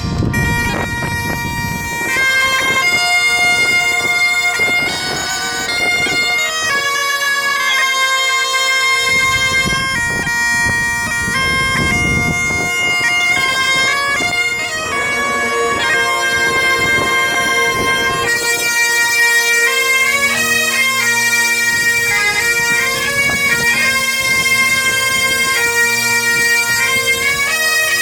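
A Breton bagad, a pipe band, playing a tune: bagpipes carry a changing melody over a steady drone, with drums in places. A lower drone joins about two-thirds of the way through.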